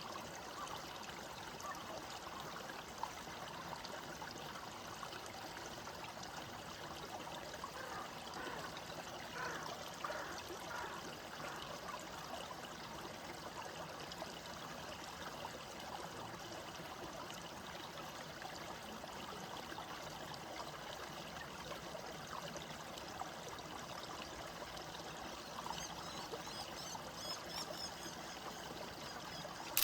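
A small stream trickling steadily, its water sound a little livelier for a few seconds near the first third.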